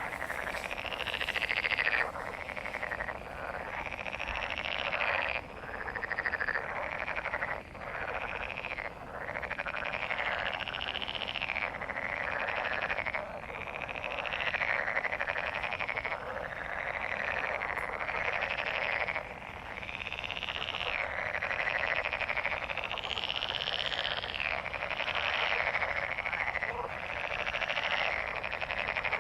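A chorus of many frogs croaking at a breeding gathering, their calls overlapping without a break and swelling and fading in waves every second or two.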